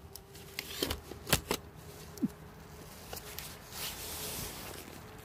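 Handling noise as the camera is lifted and repositioned: three sharp knocks and clicks a little after the first second, a short squeak, then soft rustling, under a faint steady hum.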